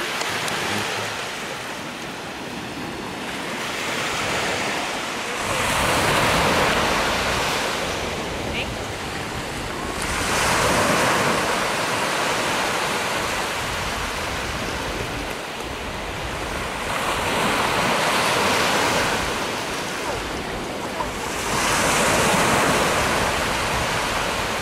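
Small waves breaking on a sandy beach: the surf swells and fades four times, about every four to five seconds.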